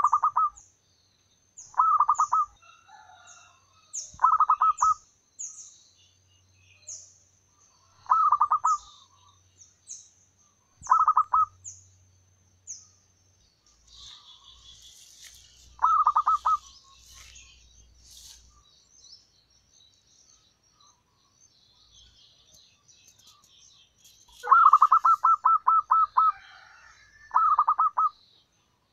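Zebra dove cooing: short bursts of rapid staccato notes repeated every few seconds, with a longer run of notes near the end. A small bird gives thin, high chirps over the first half, and other birds twitter faintly in the middle.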